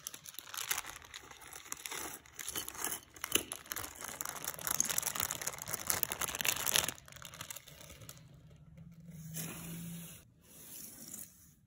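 Thin clear plastic parts bags crinkling and being torn open by hand, busiest for the first seven seconds, then quieter.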